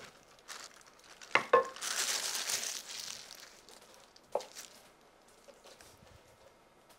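Crinkling and rustling as chocolate mousse is filled into a silicone half-sphere mould. Two sharp knocks come about a second and a half in and another a little after four seconds.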